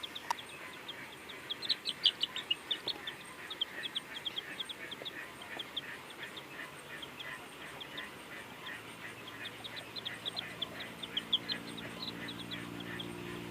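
Birds chirping: many short, quick, high chirps in an irregular run. A steady low hum joins about nine seconds in.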